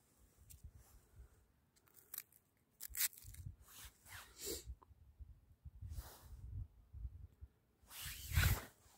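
Irregular crunching and rustling of snow, ice and a jacket sleeve as a small winter fishing rod is picked up from the ice beside the hole, with low knocks and rumble from handling the phone; the loudest rustle comes near the end.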